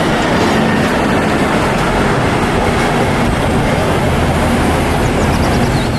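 Loud, steady rumble and road noise of city traffic as double-decker buses drive along a street, with a few faint high squeals near the end.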